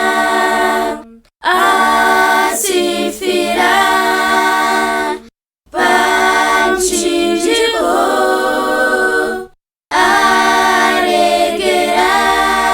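A cappella vocal group singing a Shona hymn, with no instruments, in phrases of about four seconds broken by short silent gaps. The words sung here are about Christ dying on the cross to forgive sins.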